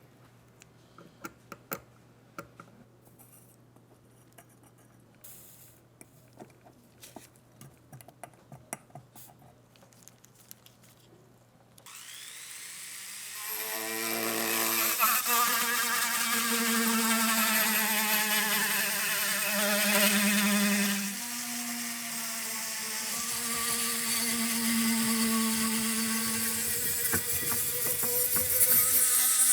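Scattered light clicks, then about twelve seconds in a small electric power tool spins up with a rising whine. It then runs steadily, its pitch dipping and shifting as it works.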